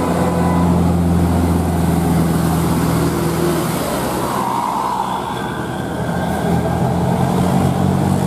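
Large bus's diesel engine running close by: a loud, deep, steady hum over road noise, easing off in the middle and growing again near the end.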